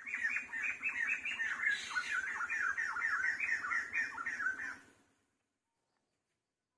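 An animal calling: a rapid run of short squawks, each falling in pitch, about three a second, that stops abruptly about five seconds in.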